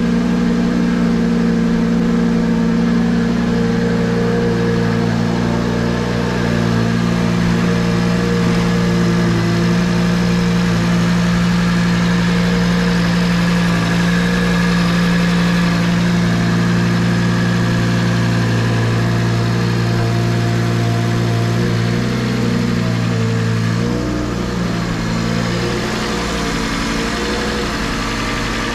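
Audi RS3 2.5-litre turbocharged inline-five idling steadily, breathing through a 4-inch CTS turbo inlet and open cone filter. About 22 seconds in the note wavers briefly, then settles a little quieter.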